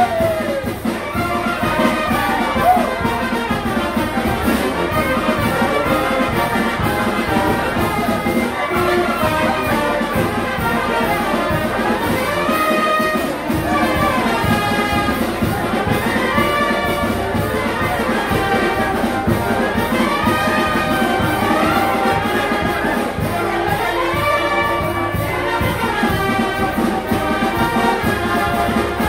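Brass band music with trumpets and trombones playing a lively dance tune over a steady beat.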